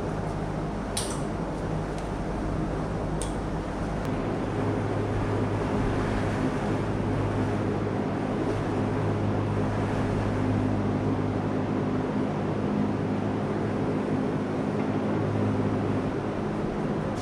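A steady low machine hum, its tone shifting slightly about four seconds in, with two sharp clicks in the first few seconds.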